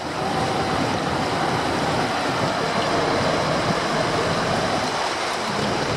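Steady rushing wash of knee-deep floodwater across a street, with a pickup truck driving through it and pushing a wave.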